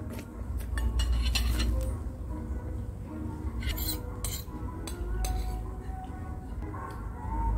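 Metal spoon clinking and scraping against a bowl while eating: a cluster of clinks about a second in and another around four seconds in, with faint music underneath.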